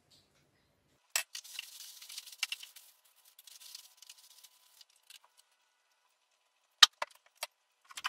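Hands working on the plastic indoor unit of a wall-mounted split air conditioner: a click, then a couple of seconds of rattling and rustling full of small clicks, and three sharp clicks near the end.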